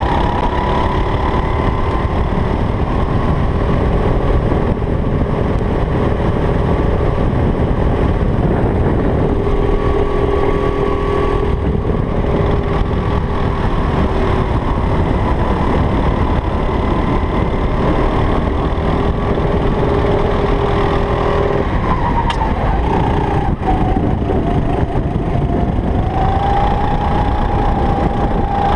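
Sodi RT8 hire kart's four-stroke engine running hard through a lap, its note holding fairly steady at high revs. About three-quarters of the way through, the pitch drops for a few seconds, then rises again as the kart speeds back up.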